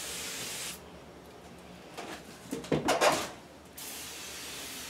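Aerosol can of silicone spray lubricant hissing in two short bursts, one at the start and one near the end, as the wheel rim is lubed for mounting a tire. A brief clatter of handling comes in between.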